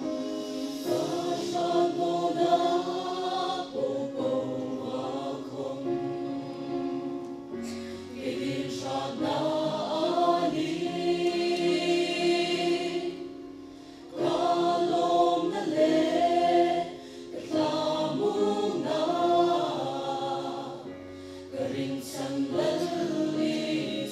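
Mixed choir of men and women singing a gospel song, with brief breaks between phrases about fourteen and twenty-one seconds in.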